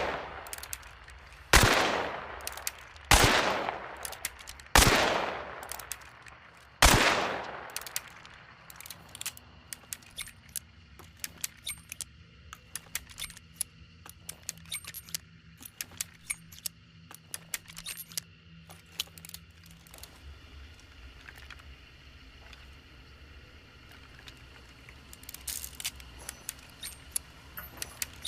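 Revolver fired four times, roughly one shot every 1.5 to 2 seconds, each shot ringing out with a long echoing tail. After the last shot comes a long run of small metallic clicks and rattles.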